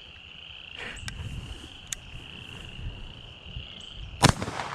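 A steady, high insect trill, then a single shotgun shot near the end, with a short echo after it.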